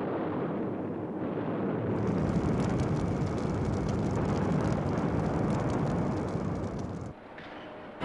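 Bombing explosions: a dense, continuous rumble with crackling over it from about two seconds in, dropping away about seven seconds in.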